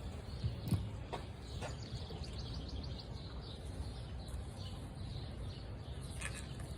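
Outdoor background noise: a steady low rumble with faint bird chirps and a few soft clicks in the first two seconds.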